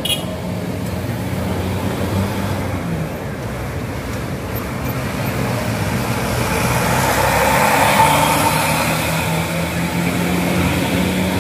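Road vehicle engines running at a low steady pitch, with traffic noise that swells to its loudest about eight seconds in and then eases.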